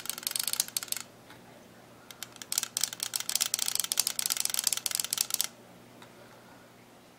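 Rapid sharp clicking from handling a Valken G6R electronic paintball marker, in two runs: a short one at the start and a longer one of about three seconds from about two seconds in.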